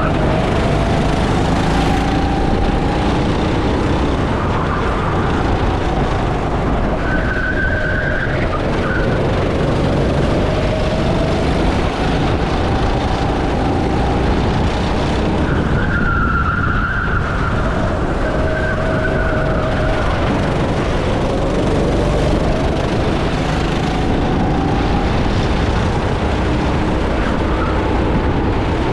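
Go-kart engine heard onboard during a race. It rises in pitch as the kart accelerates and drops as it slows, several times over, above a steady low rumble.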